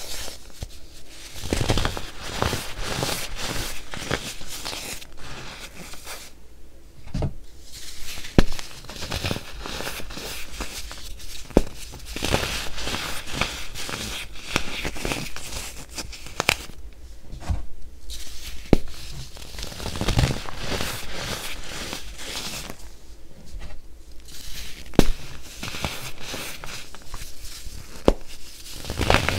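Cups of pressed baking soda crushed and crumbled between the fingers: dense crunching and crackling with sharp snaps, broken by a few short pauses.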